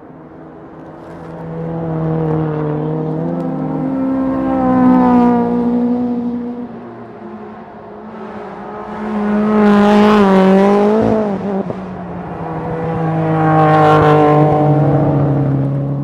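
Race car engines passing one after another, three loud passes a few seconds apart. Engine pitch rises and falls with the revs, and there is a brief drop at a gear change about eleven seconds in.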